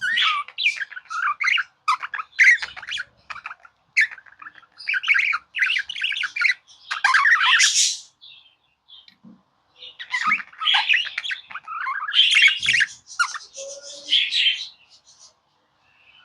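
Budgerigar warbling with fast chirps and squawks, in two long runs separated by a pause of about two seconds; it falls silent about a second before the end.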